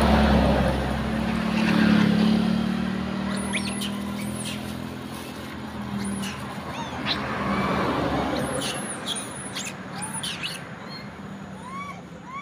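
A vehicle engine hums steadily, loudest in the first couple of seconds and then fading away. High, quick chirps and squeaks come in two clusters, one a few seconds in and a longer one past the middle, with a few short rising-and-falling calls near the end.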